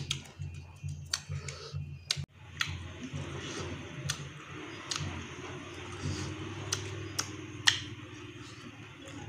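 A person chewing meat with the mouth open, with wet lip-smacks and sharp mouth clicks every second or so, the loudest near the end, over a steady low hum.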